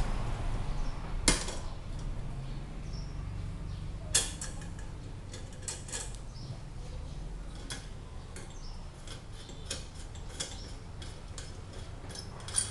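Metal parts of a kerosene pressure lantern clicking and clinking as it is taken apart by hand, with two sharper knocks about one and four seconds in, then a run of small light clicks.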